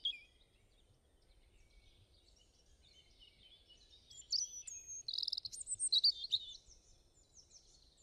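Birds singing: faint at first, then from about four seconds in a burst of varied high chirps and short trills, ending in a series of quick falling notes.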